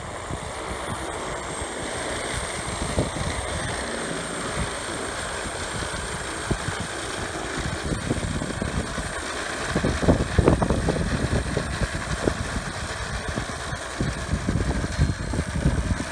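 Rotors of a hydrogen fuel-cell powered quadcopter drone running as it lifts off and hovers: a steady whir over a gusty low rumble that swells about ten seconds in and again near the end.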